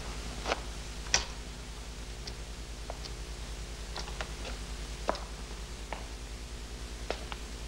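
Footsteps and scuffs of several men closing in: about a dozen soft, irregular clicks, the loudest two in the first second or so, over the steady low hum and hiss of an old film soundtrack.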